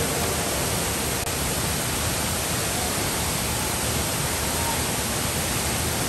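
Steady rush of a large double waterfall, two cascades pouring down a rock face into a plunge pool.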